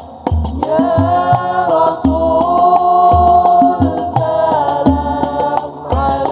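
Unison male choir singing sholawat in long, gliding held lines that swell in about half a second in, over Hadrah Al-Banjari frame drums (terbang) and a deep drum beating a steady rhythm.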